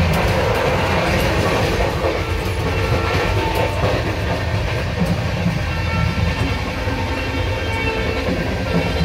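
Passenger express train in motion: a steady rumble from the running coach with the clickety-clack of wheels on the rails.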